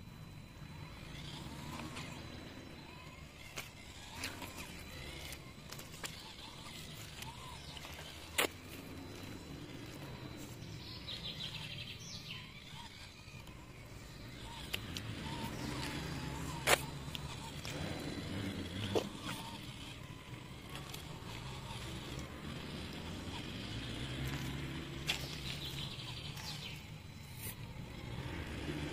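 Small 1/24-scale RC crawler driving, its motor running unevenly with a few sharp clicks, while birds chirp around the middle.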